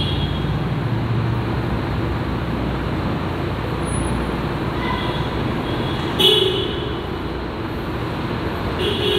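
Steady low rumble of background road traffic, with one brief higher-pitched sound about six seconds in.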